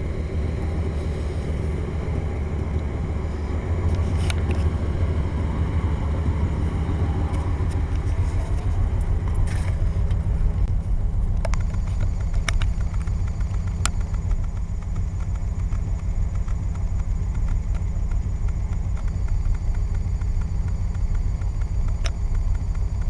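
1988 Chevy Silverado 1500 pickup's engine idling steadily through a stock exhaust, with a few sharp clicks scattered through.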